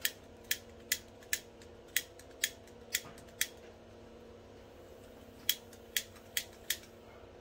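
Hand spark lighter squeezed again and again at a gas torch's tip, snapping about eleven times: seven in quick succession, a pause of about two seconds, then four more. The torch does not catch.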